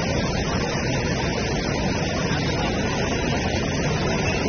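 Fast floodwater rushing across a road and pouring over its edge: a steady, dense rushing noise, heaviest in the low range.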